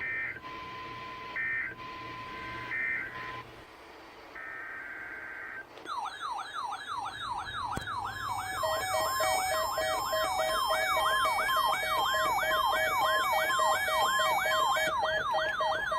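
Weather radio alert signals: short bursts of SAME digital data tones over a faint steady tone. About six seconds in, weather alert radios' alarms go off together, a siren sweeping up and down about three times a second, joined a couple of seconds later by steady alternating beeps.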